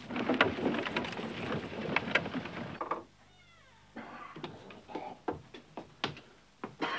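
Horse and cart arriving, with hooves and wheels clattering for about three seconds. After a brief hush with a faint falling squeak, scattered knocks and steps follow.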